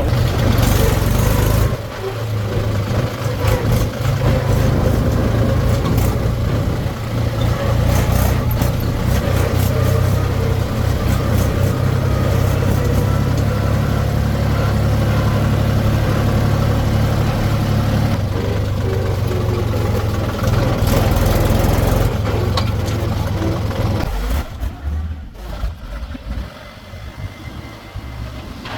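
Diesel engine of a backhoe machine running steadily under work, with scattered knocks and clanks. Near the end the engine sound drops away.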